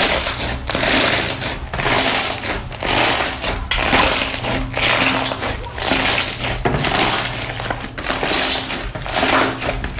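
Slime being squeezed and pressed by hand, giving a crackling squish about once a second.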